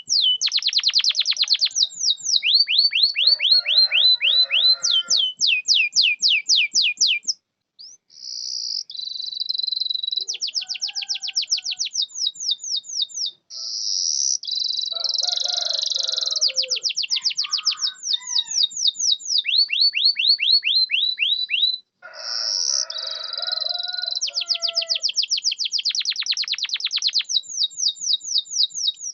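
Domestic canary singing a long song: fast series of repeated down-sweeping trill notes, phrase after phrase, mixed with a few buzzy phrases, with short breaks about a quarter, half and three quarters of the way through.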